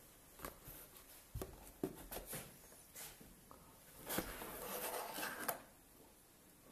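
Small cardboard box being handled: a few light knocks and taps, then a rustling scrape of cardboard lasting about a second and a half as the lid flap is pulled open.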